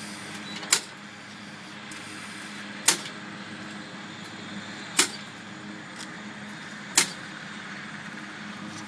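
Kinner B5 radial engine being pulled through by hand on its wooden propeller before a cold start, not firing. A sharp click comes with each pull, four in all, about two seconds apart.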